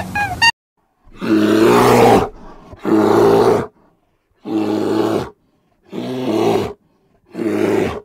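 A bear growling in five rough, loud calls, each about a second long, with short silences between. It follows the tail end of a rapid run of high chirps that stops about half a second in.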